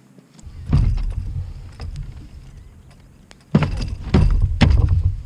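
Several sharp knocks and thumps of gear being handled on a kayak over a low, uneven rumble. The loudest knocks come in the last two seconds.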